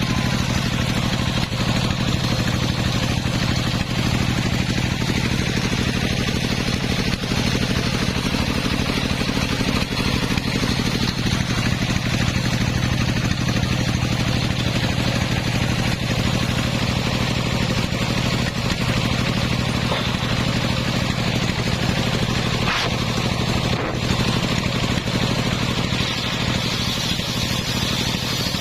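Engine of a homemade circular sawmill rig running steadily at an even speed.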